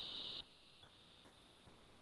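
Near silence: a faint hiss that drops away within the first half-second.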